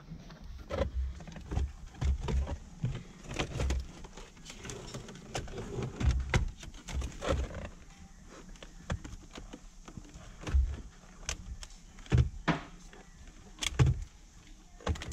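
Plastic dash trim, the instrument cluster and wiring connectors of a Mk3 Toyota Supra being handled: irregular clicks, knocks and rattles, several with dull thumps.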